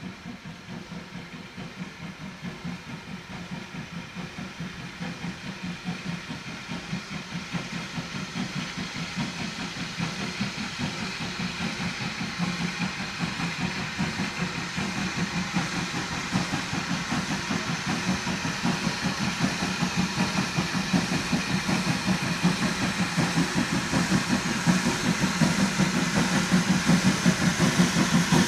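Steam tank locomotive working a passenger train, its exhaust beating in a rapid, steady rhythm and growing steadily louder as it approaches.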